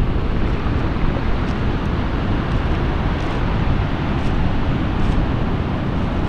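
Storm surf rumbling on a stony beach, mixed with strong wind buffeting the microphone; a steady, low-heavy noise without breaks.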